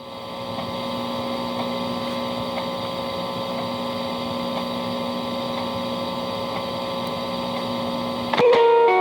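A steady hum with a constant low tone, unchanging for about eight seconds, then guitar music starts near the end.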